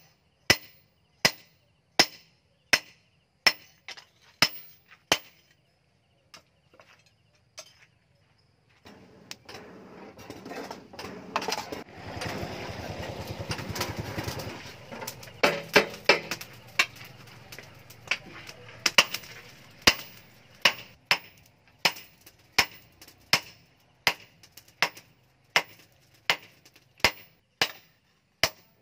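Hand hammer striking a red-hot steel knife blank on a steel anvil block, in blows at a steady pace of about one and a half a second. The blows stop for several seconds in the middle, where a steady rushing noise from the charcoal forge fills in while the blade is reheated.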